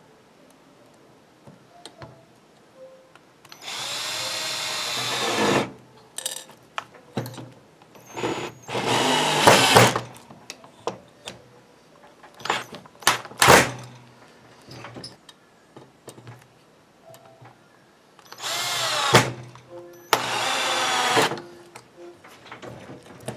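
Power drill driving sheetrock screws in about five short runs of one to two seconds each, the motor's whine rising and falling in pitch as each screw goes in. Short clicks and knocks come between the runs.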